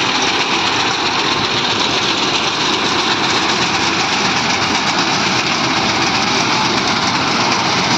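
Mahindra Yuvo 575 DI tractor's diesel engine running steadily under load, together with the mechanism of the front-mounted reaper binder it drives, as it cuts wheat and ties it into bundles.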